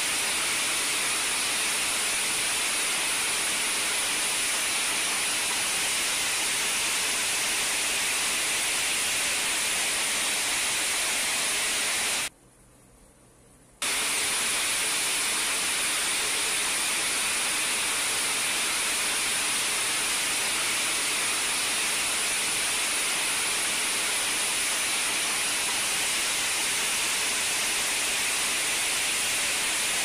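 Rushing white-water rapids: a steady, hissing rush of churning water. The sound drops out completely for about a second and a half around twelve seconds in, then resumes unchanged.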